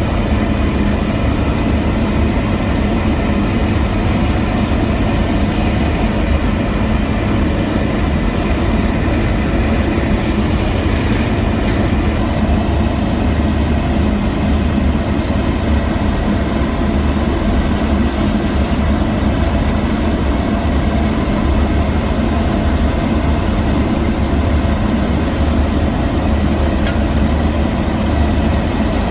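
Heavy diesel road-construction machinery running steadily, a continuous low engine sound with little change. A short high beep sounds about twelve seconds in.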